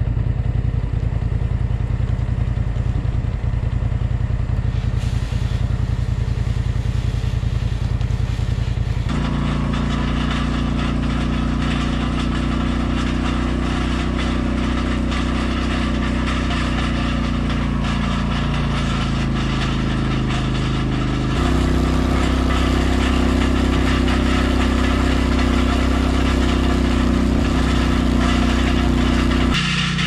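Polaris Sportsman 850 ATV's twin-cylinder engine running steadily under way, its note changing about a third of the way in and again, a little louder, about two-thirds of the way through.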